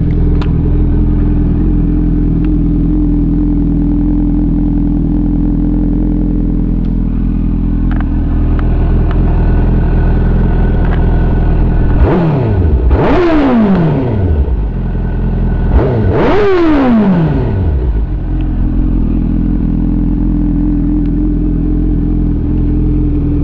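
2005 Suzuki GSX-R750 inline-four engine idling through an HR1 shorty slip-on exhaust. About halfway through it is revved twice, a few seconds apart, each rev climbing sharply and sinking back to idle.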